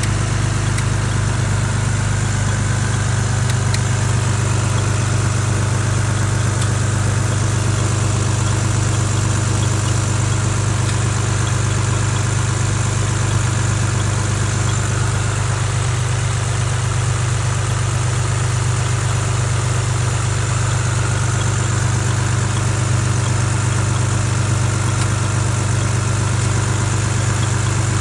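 BMW E36 M3's S50B32 3.2-litre straight-six idling steadily just after a cold start, carrying a noise the owner finds suspicious.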